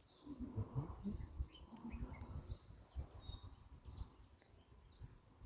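Faint outdoor ambience: small birds chirping here and there, with irregular low rumbles and bumps from wind or handling on the microphone.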